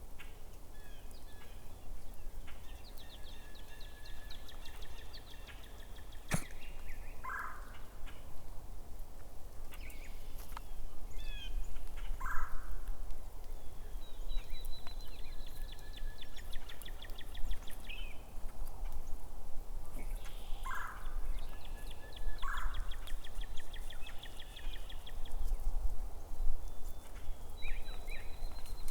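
Birds singing: a series of fast trills, each lasting a few seconds, repeated about every five seconds, with short lower notes between them.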